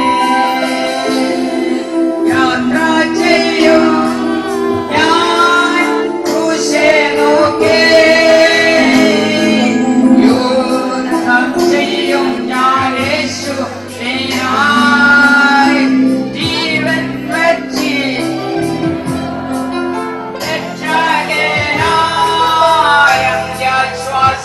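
A Christian worship song: a woman's voice singing a melody over a full instrumental backing with a bass line.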